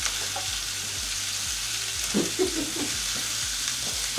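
Steaks sizzling in a hot frying pan, a steady hiss just after they have been laid in.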